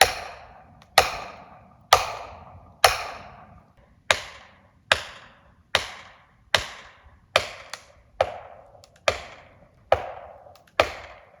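Repeated hard blows, about one a second, driving a hatchet used as a felling wedge into the back cut of a large tree to tip it past an oversized hinge. Each hit is sharp and rings briefly before dying away.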